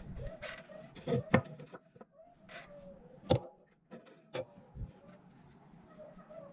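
Scattered sharp clicks and knocks, about half a dozen in the first few seconds, the loudest a little past the middle, followed by a quieter stretch; a faint wavering tone sits underneath.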